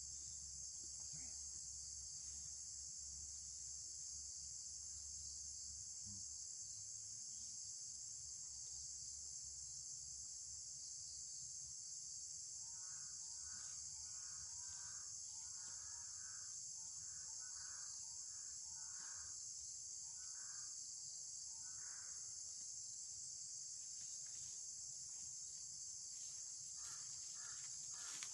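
A faint, steady, high-pitched chorus of insects throughout. Partway through, a run of short repeated chirps comes at about two or three a second for several seconds.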